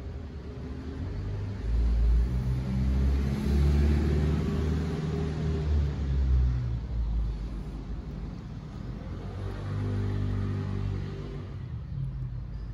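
A motor vehicle engine running close by. Its low, steady hum swells loud from about two seconds in for several seconds, then again more briefly near the end.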